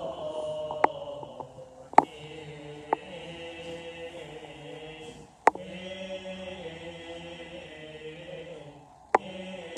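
Male voices chanting a slow Coptic liturgical hymn in unison, the held notes shifting in pitch, with a few sharp clicks at irregular moments.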